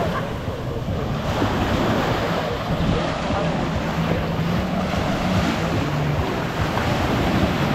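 Ocean surf washing onto a beach, with wind on the microphone and a steady low hum underneath.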